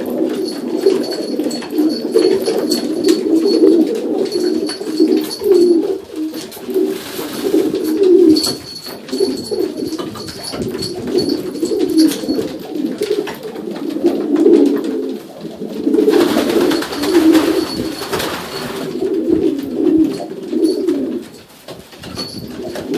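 Domestic pigeons cooing continuously, many overlapping voices, in an enclosed loft.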